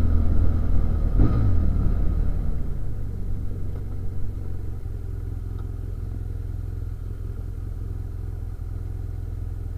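BMW F800GS parallel-twin engine slowing the motorcycle, with a falling engine note about a second in. About halfway through the level drops and the engine idles steadily as the bike stands still.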